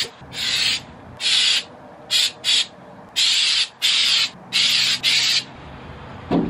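Aerosol spray can sprayed onto a glass door in a series of short hisses, about seven bursts of under a second each with brief pauses between them. A short low knock near the end.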